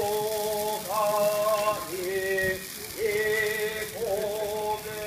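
Several horagai conch-shell trumpets blown by yamabushi, overlapping held notes about a second each that scoop up in pitch as they start, over the steady hiss of the smoking cypress fire.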